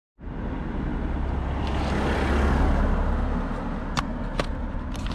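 Wind buffeting a helmet-mounted camera's microphone while riding a road bike, a steady low rumble with hiss from the ride. Two sharp clicks come about four seconds in.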